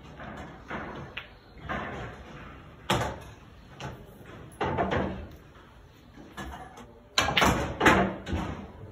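Pool balls being struck and knocking together on a coin-operated pub pool table, with heavier thuds of balls dropping into the pockets. Sharp knocks come about three and five seconds in, and the two loudest near the end.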